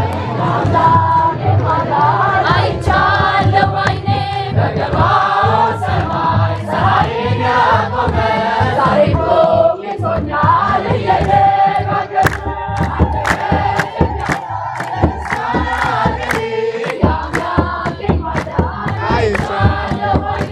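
Many voices singing a hymn together in chorus, with sharp percussive beats, thicker in the second half.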